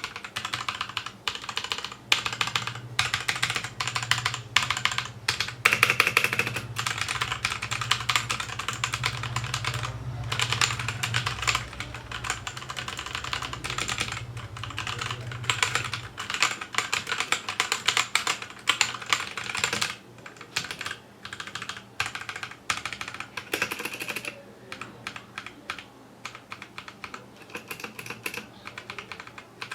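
Typing on a Royal Kludge RK61 60% wireless mechanical keyboard with Cherry MX switches, as a sound test of its key clicks. The keystrokes are fast and continuous at first, then thin out to scattered key presses with short pauses in the last third.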